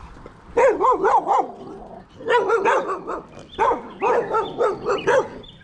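Dogs barking at a passing cyclist, in three quick runs of sharp barks.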